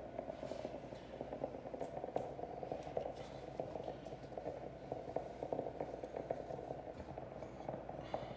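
Garment steamer running, a steady hiss with fine crackling as its nozzle steams an open wallpaper seam to moisten and soften the paper for regluing.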